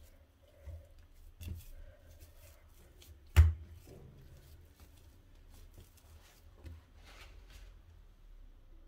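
Hands working a ball of chapati dough over a granite countertop: quiet handling sounds and a couple of soft knocks, with one sharp thump about three and a half seconds in.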